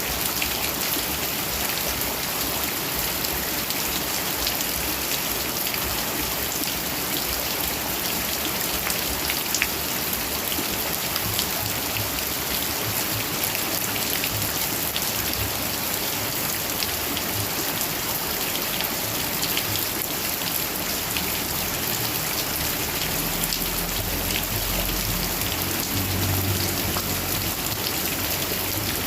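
Heavy rain falling steadily, a dense patter of drops hitting surfaces. A low rumble swells up about three-quarters of the way through and lasts several seconds.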